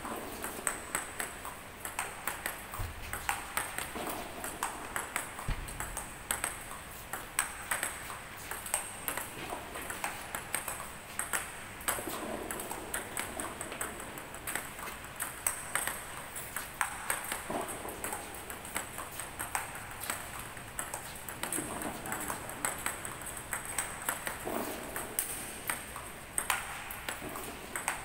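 Celluloid-type table tennis balls being struck by paddles and bouncing on the table, a quick, irregular run of sharp clicks with several balls in play at once.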